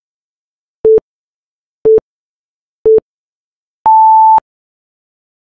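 Electronic countdown-timer beeps: three short, lower beeps about a second apart, then one longer, higher beep as the count reaches zero and time runs out.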